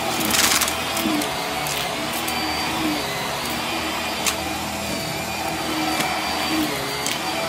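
HART vacuum cleaner running steadily as its powerhead is pushed over carpet, with a brief louder rush about half a second in and a couple of faint clicks later.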